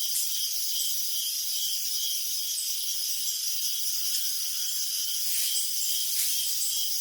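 Crickets chirping at night: a dense, steady high-pitched trilling chorus, with a regular chirp pulsing about two to three times a second.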